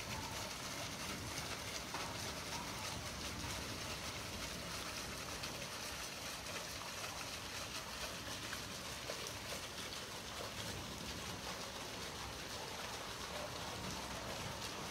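Heavy rain falling steadily, an even hiss with no break.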